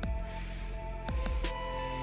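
Background music with held, sustained notes, with a few small clicks over it.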